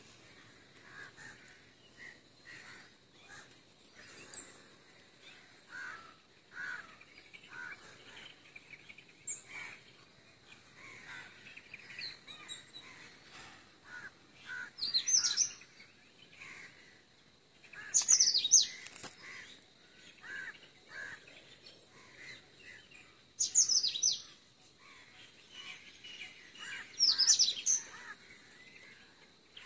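Wild birds calling: soft chirps scattered throughout, with four louder bursts of quick, high, falling calls a few seconds apart, starting about halfway through.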